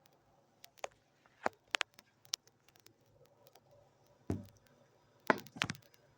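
A few irregular sharp clicks and knocks, with a duller thump about four seconds in and a louder cluster of clicks near the end.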